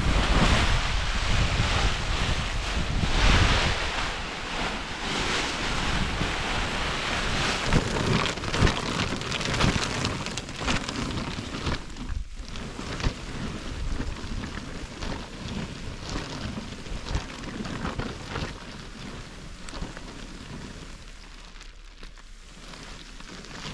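Thin plastic silage-cover film rustling and crackling as it is pulled and blown about, with wind buffeting the microphone; the noise is loudest in the first half and dies down over the second half.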